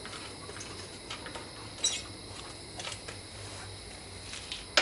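Scattered light clicks and knocks of a portable task light being handled and repositioned, with a sharp knock about two seconds in and another at the end, over a faint low hum.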